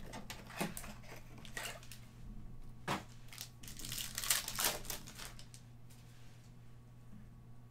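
Trading-card pack's plastic wrapper crinkling and tearing as it is pulled from the box and ripped open by hand, in irregular rustles that are busiest around four to five seconds in, then die away.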